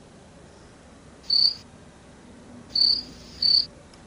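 Cricket chirping sound effect, the stock cue for an awkward silence: three short high chirps, one about a second and a half in and two close together about three seconds in.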